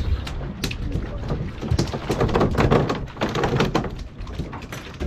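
Irregular knocks and thuds on a fishing boat's deck, over a rushing haze of wind and water that is loudest around the middle.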